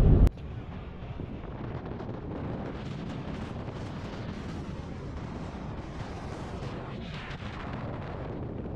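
Steady low rumble with hiss, like the road and wind noise of a moving car, starting abruptly a moment in after a cut.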